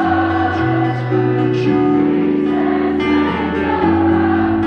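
Live pop music: a crowd singing the line together in chorus over held piano chords and guitar.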